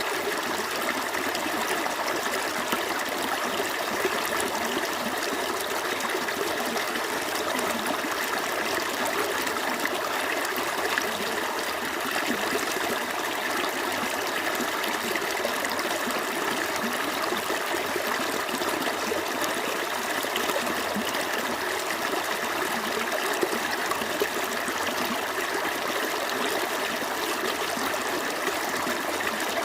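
Small stream flowing and trickling over rocks, a steady continuous babble of running water.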